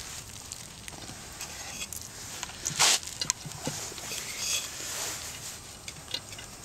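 Sand scooped from a clay pot and packed by hand into the side air hole of a tree-stump rocket stove to smother the fire: light scraping and pattering of sand, with one louder gritty rush about three seconds in.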